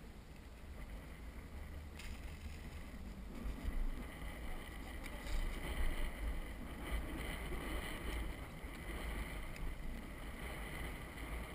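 Steady wind rumble on the microphone of a camera mounted on an open bass boat on the water, with an occasional faint click or knock.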